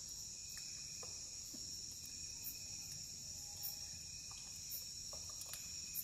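Steady chorus of crickets, a high continuous trilling, with a few sharp pops and crackles from a campfire.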